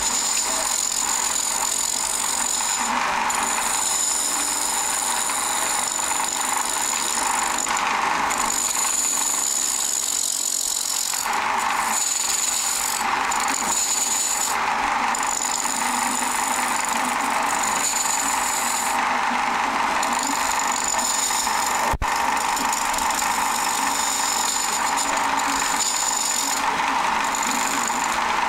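Wood lathe spinning a glued-up stacked bowl blank while a hand-held turning tool cuts it, a steady scraping hiss of wood being shaved with a high whine that cuts out and comes back every few seconds. One sharp click late on.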